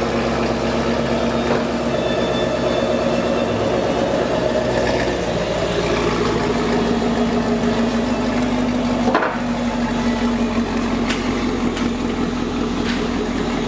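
Chevrolet Camaro idling steadily through its rebuilt exhaust with a new mid pipe, heard from the tailpipes. A single short knock about nine seconds in.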